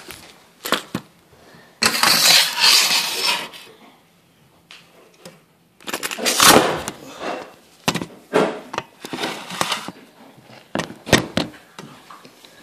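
Handling noise from a phone being moved about while recording: rubbing and rustling against the phone, with a scatter of sharp clicks and knocks.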